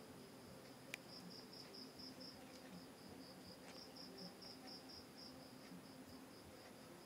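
Faint, steady insect chirping: a high, even pulse at about five a second throughout, with a single sharp click about a second in.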